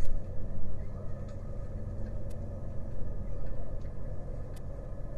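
Steady low rumble with a faint hum underneath and a few faint clicks.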